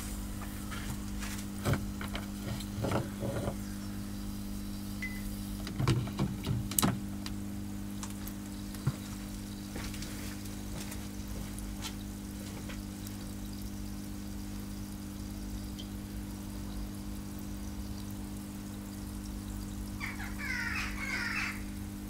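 Electrode water heater powered on DC in salt water: a steady low electrical hum, with scattered sharp pops and crackles in the first seven seconds and a brief burst of fizzing and bubbling near the end.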